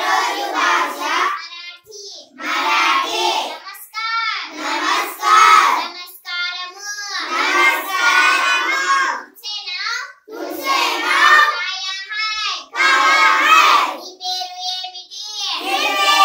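A group of children chanting phrases aloud together in a sing-song classroom recitation, in short phrases of a second or two with brief pauses between them.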